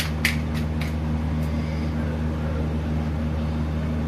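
Crisp gupchup (pani puri) shell cracking as a fingertip pokes it open: a few sharp crackles in the first second and a half. A steady low electrical hum runs underneath.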